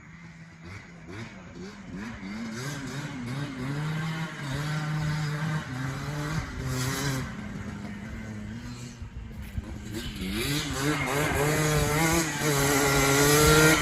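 Yamaha Blaster ATV's two-stroke single-cylinder engine running and being revved up and down repeatedly, getting louder toward the end.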